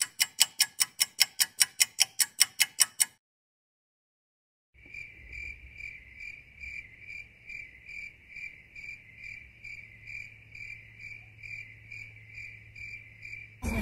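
Clock-ticking sound effect: fast, loud ticks at about six or seven a second, stopping after about three seconds. After a short silence comes a crickets-chirping sound effect, a steady high chirp repeated about three times a second, over a faint low hum.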